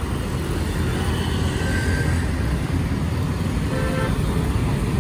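Steady road traffic, cars and scooters running past with a low rumble, with short horn toots about two and four seconds in.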